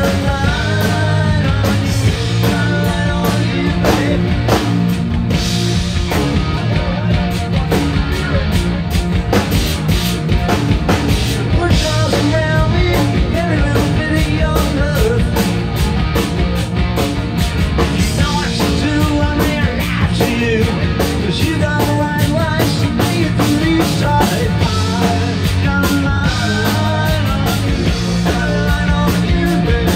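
Live rock band playing loudly, with electric guitars over a driving drum kit beat.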